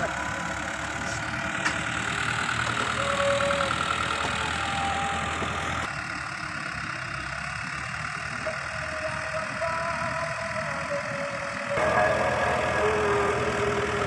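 Fiat 640 tractor's diesel engine running steadily under load as it pulls a laser land leveler over loose soil. The sound changes abruptly about six and again about twelve seconds in.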